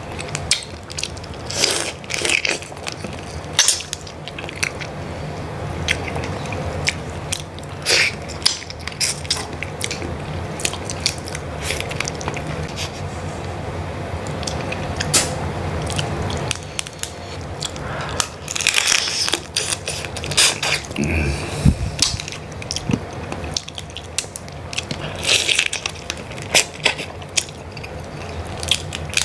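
Close-miked eating of prawns and mud crab: wet chewing with frequent sharp clicks and crunches of shell being bitten and cracked. A steady low hum runs under the first half and stops a little past the middle.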